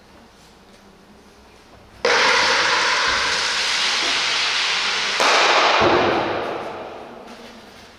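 An ice stock sliding across the playing surface: a sudden hissing rumble starts about two seconds in and gets louder about three seconds later. It then fades away over the last two seconds as the stock slows.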